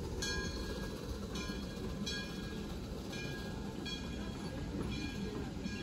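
Open passenger cars of a steam train rolling slowly past: a steady low rumble of wheels on track, with short metallic rings from wheels and rail a little more than once a second.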